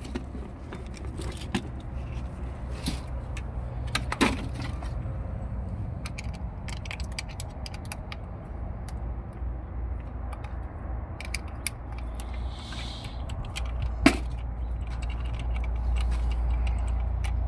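Scattered light clicks and clinks of small metal parts and tools being handled, over a steady low rumble, with a sharper knock about four seconds in and another about fourteen seconds in.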